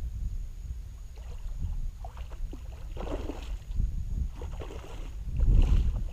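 Wind rumbling on the microphone and water sloshing around a small skiff on the water, uneven and loudest near the end.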